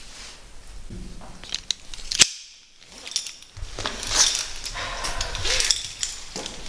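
Metal caving gear clicking and clinking, carabiners and harness hardware handled, with rope and clothing rustling. There is a sharp click about two seconds in, then the sound drops out for a moment before the rustling and clinks resume.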